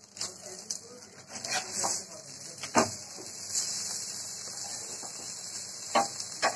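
A spatula scraping and pressing banana-leaf-wrapped fish parcels in a frying pan, with a few sharp knocks against the pan. A faint steady sizzle runs under it from about halfway through, as the paturi finishes pan-roasting.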